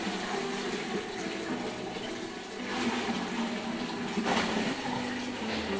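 Running water splashing, with brief surges about three and four seconds in, over background music of short low notes.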